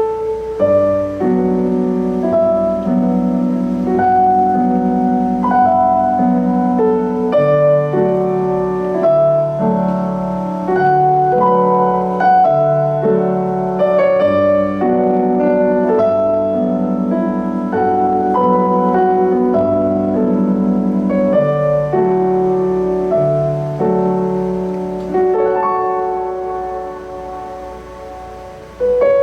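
Keyboard solo in a piano voice: a melody played over sustained chords and bass notes. It eases off and grows quieter near the end, then a loud new chord comes in.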